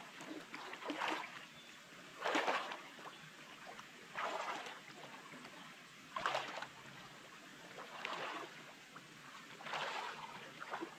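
Shallow muddy water splashing and sloshing as a man wades and gropes through it with his hands, in separate splashes about every two seconds.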